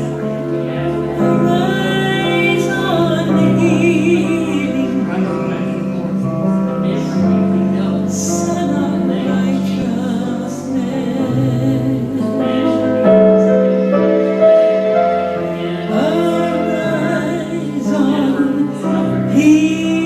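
Worship music: voices singing long held notes over instrumental accompaniment.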